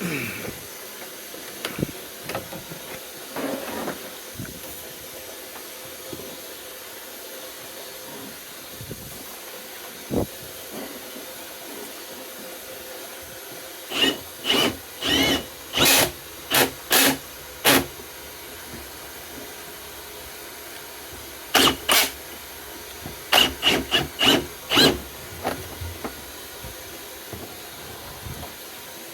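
Cordless hammer drill spinning a Flexshaft drain-cleaning cable in two runs of short trigger bursts, each a brief whine, clearing roots in the sewer line. A steady hiss of running water underlies it.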